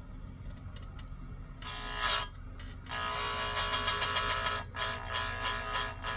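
Electric chainsaw-chain grinder, its grinding wheel touching the cutters in bursts with a shrill ringing. There is a short grind, then a longer one of almost two seconds, then a string of quick touches about three a second, over a steady low motor hum.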